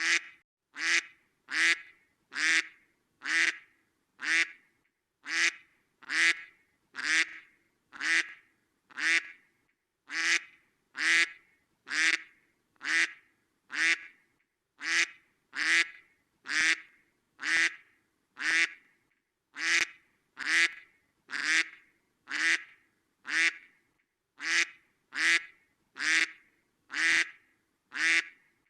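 Duck quacking: single short quacks repeated evenly, about one a second, with silence between them.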